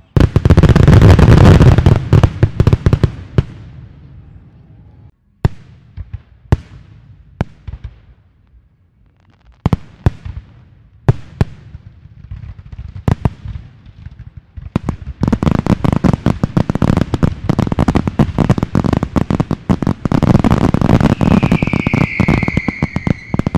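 Aerial fireworks display: a dense barrage of rapid bangs at the start, then a lull of scattered single bangs, then another long, dense barrage. Near the end a high whistling tone falls slightly in pitch over the bangs.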